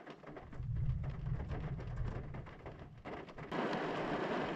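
Thunderstorm sound: a low rolling rumble of distant thunder with gusty wind, then, after an abrupt cut about three and a half seconds in, a steady, louder rushing hiss of wind and rain.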